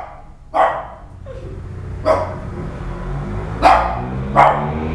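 Chihuahua barking in short, sharp yaps, about five over a few seconds, the later ones with a low rumble under them.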